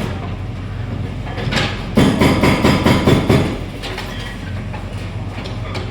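Excavator diesel engine running steadily. About two seconds in, a loud clatter of concrete and debris crashing and knocking lasts about a second and a half, as demolition rubble breaks and falls.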